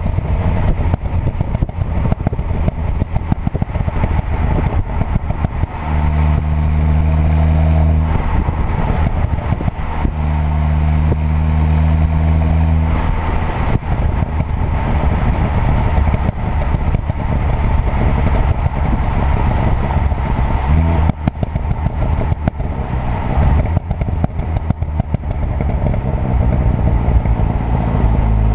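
Tuned 2.0 TFSI turbocharged four-cylinder car's exhaust on the move, running at steady revs in stretches and crackling and popping rapidly in between. About twenty seconds in, the revs rise briefly and a dense run of crackles follows.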